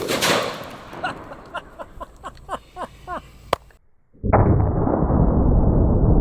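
A single gunshot at the start, followed by a decaying tail with several short falling chirps. After an abrupt cut a little past the four-second mark, a loud, steady rushing rumble sets in.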